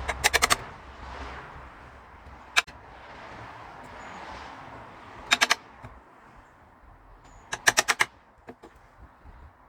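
Hammer striking a chisel in quick bursts of four or five sharp blows, with a few single knocks between: the chisel squaring off the rounded corners of routed hinge recesses.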